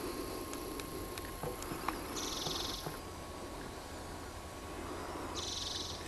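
Two short, high, fast trills about three seconds apart, typical of a small songbird singing, with scattered light clicks over a steady low background hum.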